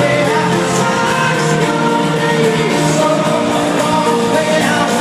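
Live pop-rock band with a male lead vocal, loud and continuous through an arena PA, heard from the crowd in the stands.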